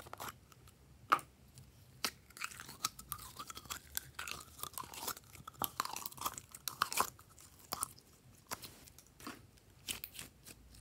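A plastic bottle of slime: a few sharp clicks as the cap is worked off, the loudest about a second in. Then several seconds of wet crackling and squelching as the slime is squeezed out of the bottle, followed by scattered clicks and pops as the slime is handled.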